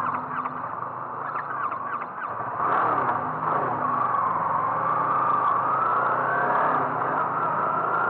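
A motor vehicle running, with a steady low hum and a whine that drifts up and down in pitch.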